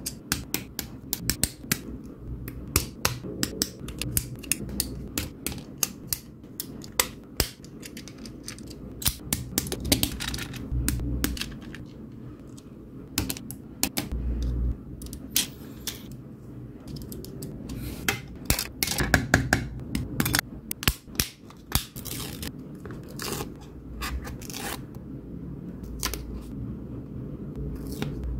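Small plastic parts of a Tamiya Mini 4WD kit clicking and snapping as they are fitted onto the chassis and handled, with sharp clips of side cutters trimming parts from a plastic sprue. The clicks come irregularly and often, some in quick clusters.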